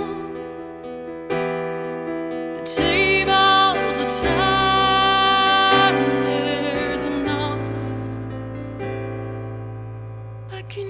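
Slow, gentle music with sustained electric piano or keyboard chords. It swells a few seconds in, then slowly fades.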